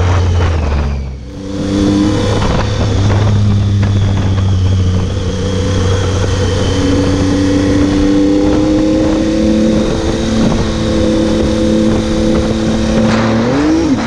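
Triumph Tiger 800's three-cylinder engine running under load on the move, with wind rush over the bike-mounted camera. The engine note dips briefly about a second in, then holds steady with its pitch slowly climbing, and rises quickly near the end.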